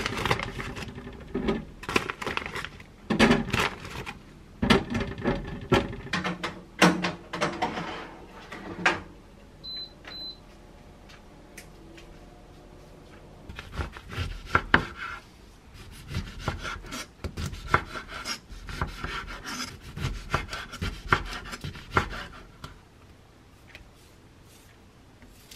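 Kitchen food-prep sounds: a plastic bag of frozen tofu tenders rustling, and the tenders set down on a wire air-fryer tray with many small clicks and knocks. About ten seconds in, an air-fryer oven's control panel gives two short high beeps as it is set. More scattered knocks and rustles of handling follow.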